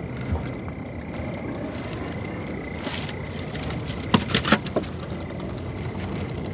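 Small river fishing boat's engine running steadily under a noisy hum of water, with a few sharp clicks and knocks about four seconds in.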